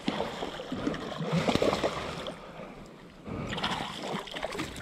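Water splashing and sloshing against a kayak's plastic hull as a hooked kahawai thrashes at the surface beside it. The splashing comes in two bouts, with a lull of about a second between them.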